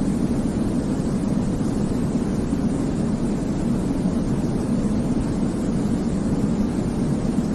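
Continuous sleep white noise for babies: an even, unchanging hiss weighted toward a deep rumble, with no rhythm or events.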